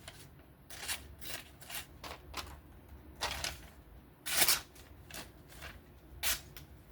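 A freshly sharpened folding knife's edge slicing through a sheet of paper to test its sharpness: a string of short, crisp swishes, the loudest about four and a half seconds in and another near the end.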